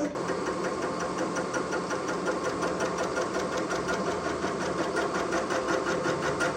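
A metalworking machine running steadily with a fast, even ticking.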